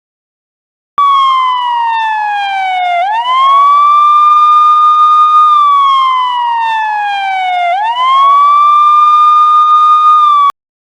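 Police car siren in a wail pattern: the pitch falls slowly, sweeps quickly back up and holds high, twice over. It starts about a second in and cuts off suddenly near the end.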